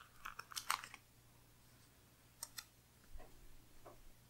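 Faint clicks and rustles of a paper sticker being handled and pressed down onto a planner page by hand: a quick cluster in the first second, then two sharp clicks about two and a half seconds in and softer taps near the end.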